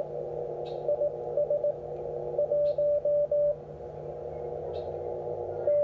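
Morse code (CW) coming from an HF transceiver's speaker on the 17 m band: a keyed beep sending dots and dashes in bursts, a few short ones about a second in and a run of longer dashes around the middle, over steady narrow-filtered band hiss with a second faint steady tone beneath.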